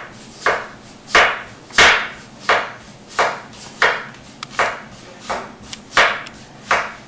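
Knife slicing raw baking potatoes thin by hand, about ten even strokes, roughly one every two-thirds of a second, each a short crisp cut through the potato.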